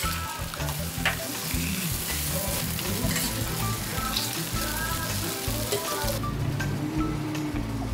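Ham slices and egg patties sizzling on a hot flat-top griddle; the sizzle thins out sharply about six seconds in.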